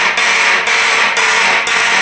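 Electromechanical fire alarm horns sounding in march time, about two blasts a second (120 beats per minute), with a harsh, raspy tone. The owner puts the raspiness down to horn mechanisms that still need adjusting.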